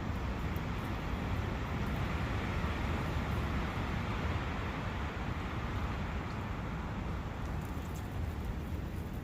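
Steady rushing of wind in a forest: an even noisy wash with a deep rumble underneath, swelling slightly a few seconds in.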